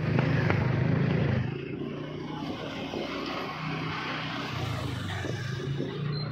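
Motorbike and scooter engines running as they pass close by in a narrow street. The engine hum is loudest in the first second and a half, and another passes in the last two seconds.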